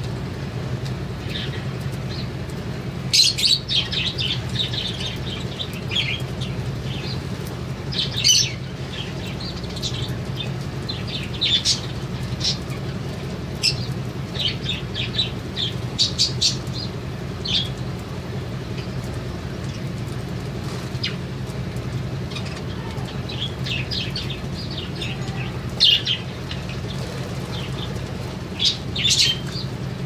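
A flock of budgerigars chirping, short high calls coming in scattered clusters, over a steady low hum.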